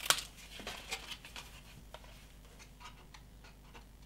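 Small scissors snipping white cardstock to trim glue tabs: one sharp snip at the start, then a run of faint snips and clicks.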